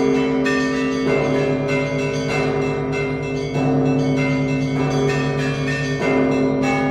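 Russian Orthodox church bells rung in a festal peal (zvon). Smaller bells of several pitches are struck in quick rhythm over a ringing, overlapping hum, and a deeper bell sounds about every two and a half seconds.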